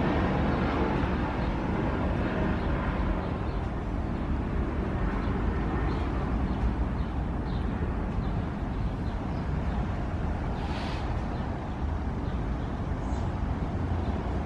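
Steady low outdoor rumble that slowly fades over the first several seconds, with faint small clicks of cats eating wet food from a plastic dish.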